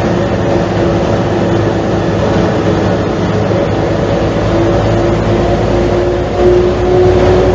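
Mercedes-Benz O345 Türk city bus's diesel engine idling, a steady low rumble with a whining tone over it that comes and goes and holds steadier and louder near the end.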